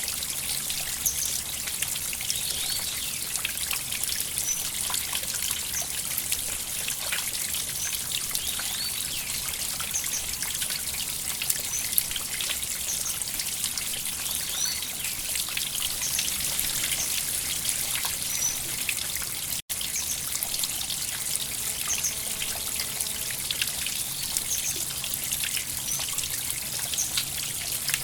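A small river flowing over stones, with steady trickling and bubbling water. The sound cuts out for an instant about two-thirds of the way through.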